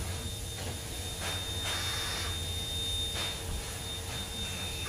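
NSWGR 59 class steam locomotive 5917 hissing steam, with a steady hiss broken by several louder, irregularly spaced bursts of escaping steam and exhaust.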